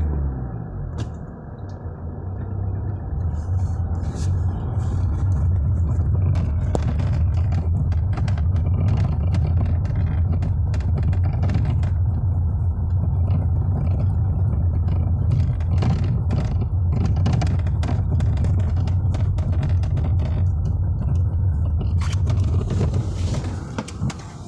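Car being driven on the road: a steady low rumble that builds over the first few seconds and dies away near the end, with many irregular knocks and rattles across it. The knocks are the steering rack noise problem.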